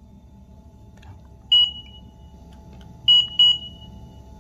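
Wacaco digital coffee scale beeping: one short beep about a second and a half in, then two quick beeps close together near the three-second mark.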